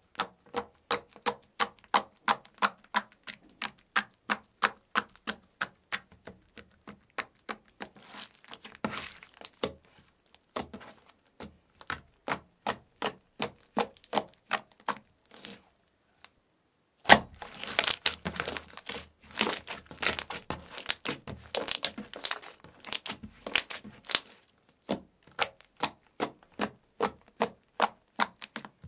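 Fingers pressing and poking into thick metallic slime, making a quick run of sharp clicks and pops about three to four a second as trapped air bursts. They break off for about a second partway through, then resume and come thicker.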